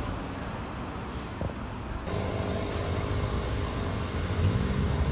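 Car engines running amid street traffic: a steady low hum that gets a little louder and more engine-like about two seconds in.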